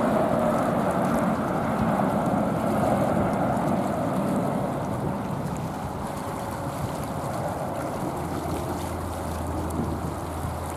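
Jet engines of a Boeing 787-9 airliner rolling on the ground, heard from a distance as a steady rumble with a faint whine, mixed with wind noise on the microphone.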